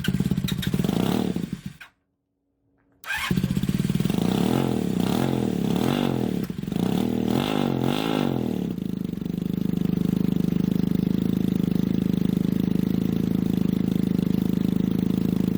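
1980 Honda CM400's air-cooled parallel-twin engine running on its first start after a top-end and carburettor rebuild. It is revved up and down several times, then settles into a steady idle about nine seconds in. The sound drops out completely for about a second near the start. The owner says the engine runs but with some missing.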